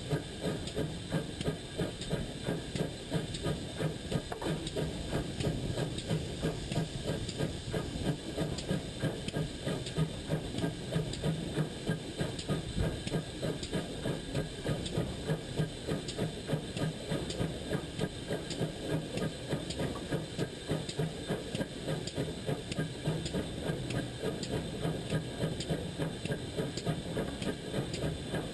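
GWR pannier tank steam locomotive running along the line: an even run of exhaust beats, about two a second, over a constant hiss of steam.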